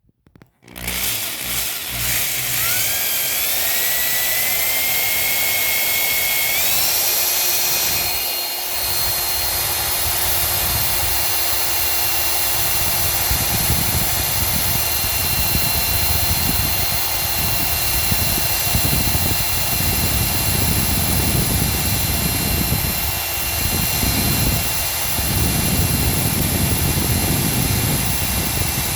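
Electric drill with a metal bit boring into a bicycle frame's cracked seat tube. Its motor starts about a second in, and the whine rises in pitch in steps over the next several seconds, then runs steadily.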